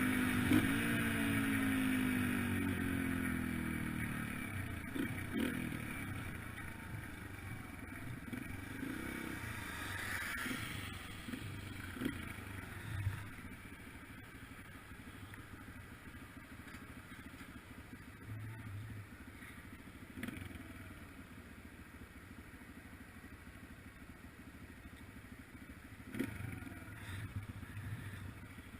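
Single-cylinder four-stroke engine of a Yamaha TTR-125LE dirt bike, its pitch falling as it slows over the first few seconds, then running low and quiet, near idle. Occasional knocks and rattles.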